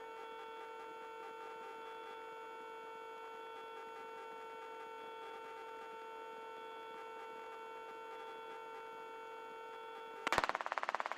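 Helicopter cockpit audio with a steady low hum of several pitched tones. About ten seconds in, a loud rapid buzzing crackle of radio static breaks in.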